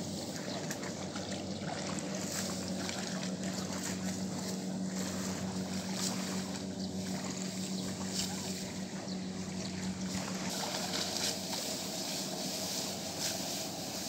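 Rice stalks swishing and crackling as they are gathered and cut by hand with a sickle, over a steady engine hum that fades out about ten seconds in.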